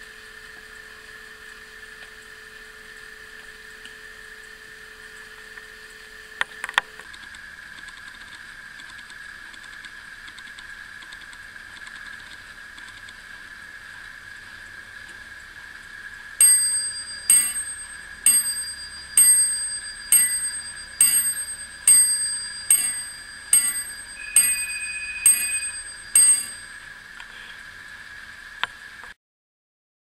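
Antique Paris clock movement of an Art Deco glass-cage mantel clock striking midnight: twelve ringing bell strikes, a little under one a second, each fading before the next.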